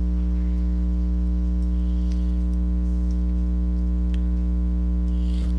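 Steady electrical mains hum with its overtones, with a few faint clicks.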